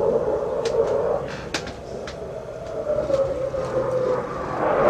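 Engine drone with a slowly falling pitch, and scattered clicks. Near the end a loud rushing noise swells up.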